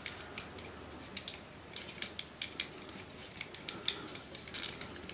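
Plastic sticks of a burr puzzle (a glow-in-the-dark Kong Ming lock) clicking and knocking against each other as they are pushed and turned in the hands, in irregular sharp clicks.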